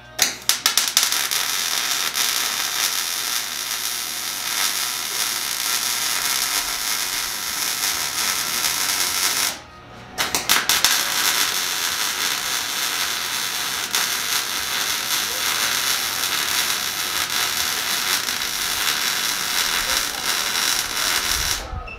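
MIG welder welding on a steel tube frame: a steady, dense crackling sizzle that breaks off briefly about ten seconds in and then resumes.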